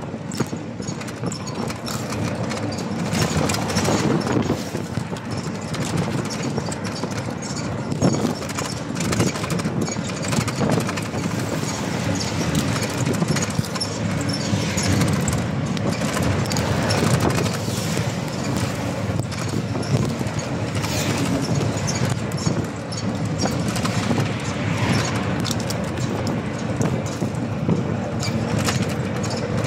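Steady road noise and rattling from riding in an open vehicle, with frequent small knocks and jolts.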